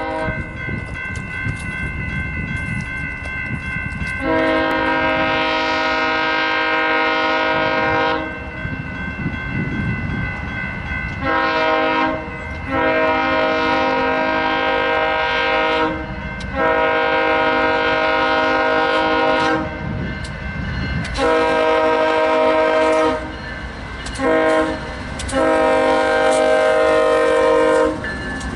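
Diesel locomotive air horn sounding a chord in a series of seven blasts, mostly long, the last four going long, long, short, long: the grade-crossing warning signal. A steady low rumble of the train runs under it.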